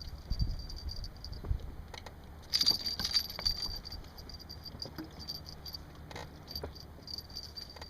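Light metallic jingling and clicking, loudest about two and a half to three and a half seconds in, with a few low thumps near the start.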